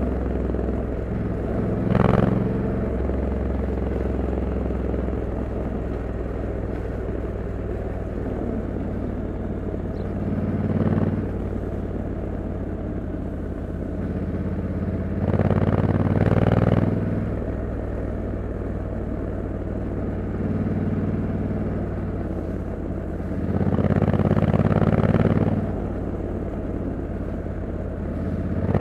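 Honda Africa Twin 1100 DCT's parallel-twin engine running with its stock exhaust while riding on the road, the engine note swelling louder several times.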